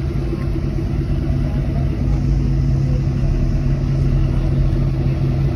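Lifted pickup truck's engine running steadily at low revs as the truck rolls slowly past, an even drone with no change in pitch.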